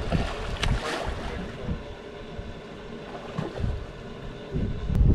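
Wind buffeting the microphone in gusts: a low rumble that eases off in the middle and comes back strong near the end, with a few light clicks in the first second.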